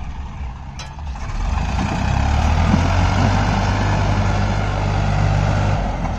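Farmtrac 60 EPI tractor's diesel engine working hard under load, pulling a sand-loaded trolley through soft, boggy ground. The engine note swells about a second and a half in and then holds steady.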